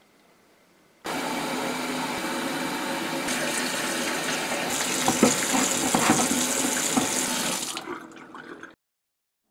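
Sink faucet running full, water splashing into the basin and over a stoneware crock being rinsed by hand, with a few knocks as the crock is handled. The water starts suddenly about a second in and dies away near the end.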